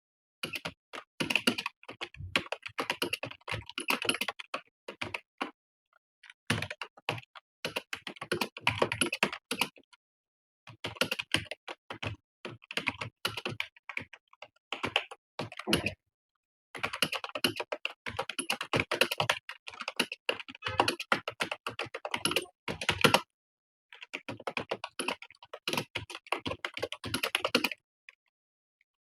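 Computer keyboard being typed on continuously, quick key clicks in runs of several seconds broken by brief pauses about every five seconds.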